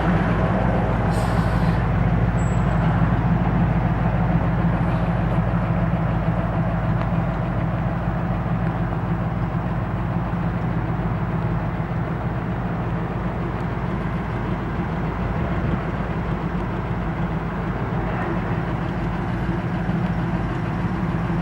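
GAZ-66 truck's V8 petrol engine idling steadily, with a short hiss of air about a second in.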